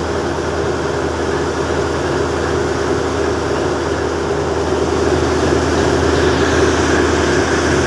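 Small boat's engine running steadily underway: a low hum and a steady mid-pitched drone over a wash of noise. It grows a little louder about five seconds in.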